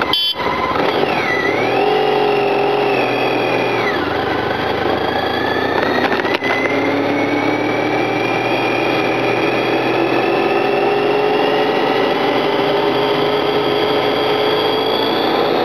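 Motorcycle engine pulling away and accelerating: its pitch rises, drops at a gear change about four seconds in, then climbs steadily for the rest of the run.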